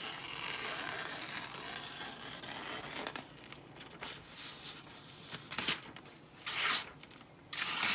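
Freshly sharpened Buck Vantage knife blade, its edge finished on a 4000-grit stone, slicing through thin phone book paper: a smooth hiss lasting about three seconds, then a few short paper slices and rustles near the end.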